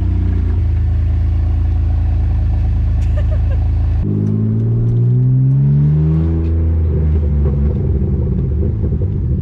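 Car engine running at a steady idle; about four seconds in its note climbs for a couple of seconds, then wavers up and down.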